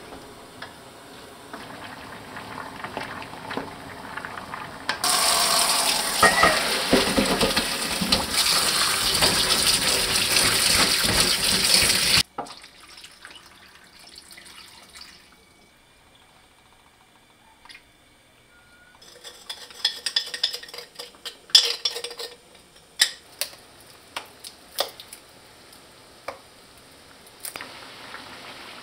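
Kitchen sounds while braising lotus root on a gas stove. A loud stretch of running water about five seconds in cuts off suddenly, followed by a quiet spell, then a run of sharp clicks and pops. Near the end comes the steady sizzle of the lotus root simmering in its sauce.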